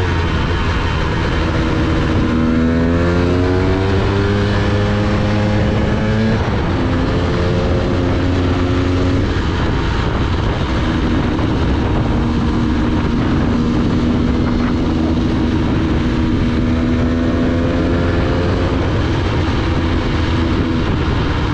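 Dirt bike engine heard from the rider's position, rising in pitch as it accelerates about two seconds in and dropping sharply at a gear change about six seconds in. It then holds a steady cruise and eases off again near the end, over a steady rush of wind.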